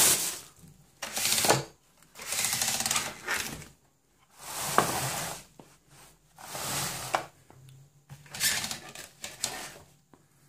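Clear plastic packaging bag rustling and crinkling around a boxed mitre saw as it is handled and unwrapped, in about seven separate bursts of a second or so each with short pauses between.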